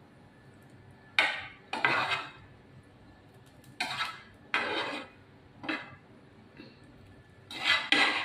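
Metal tongs scraping and clinking against a frying pan in about six short bursts, as pieces of beef are picked up and moved into another pan.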